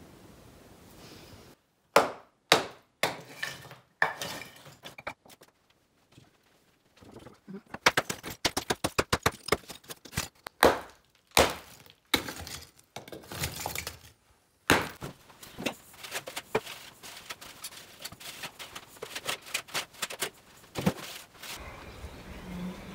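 Chunks of broken brick and mortar rubble knocking and clattering against each other as old masonry is broken out and cleared. The knocks come singly at first, then in a rapid irregular run.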